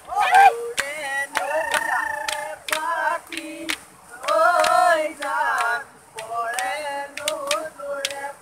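A small group singing an Assamese Bihu song in phrases, with a steady beat of hand claps keeping time.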